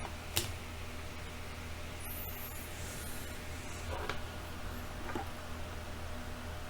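A few faint clicks and light scrapes from small tools and plastic parts being handled on an opened Nintendo 3DS during a touchscreen digitizer replacement, over a steady low hum. One sharp click comes just after the start, and softer ticks come about four and five seconds in.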